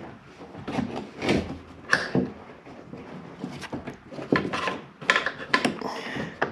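Scattered clicks, knocks and light scrapes as a 2009 Nissan Versa's door-handle parts and gasket are handled and fitted into the door.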